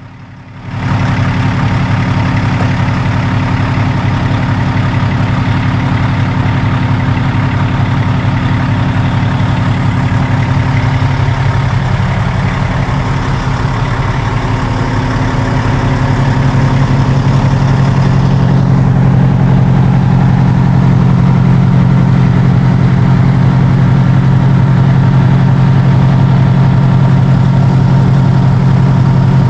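Fire engine's diesel engine idling, a loud steady drone that grows somewhat louder a little past the middle as the apparatus is passed up close.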